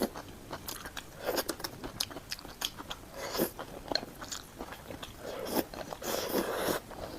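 Close-miked eating: a person biting and chewing food, with many short crunchy clicks and a few longer, noisier chewing stretches.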